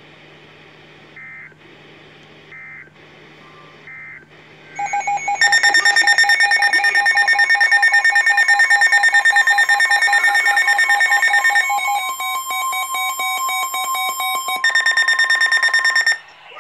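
NOAA Weather Radio alert sounding for a new warning: three short, faint data chirps, then a loud, rapidly pulsing electronic alarm tone for about eleven seconds. It changes pitch pattern twice and cuts off suddenly near the end.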